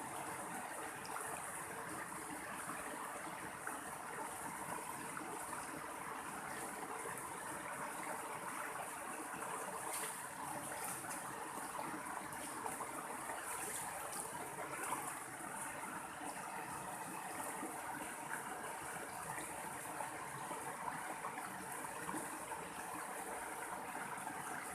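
Mountain stream water flowing steadily with an even rushing sound.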